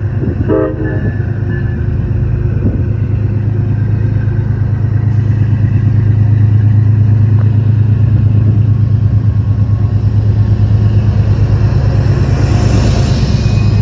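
Diesel locomotive sounding a short horn honk about half a second in, then its engine running under load as it departs: a loud, low, pulsing drone that builds over the first few seconds and holds.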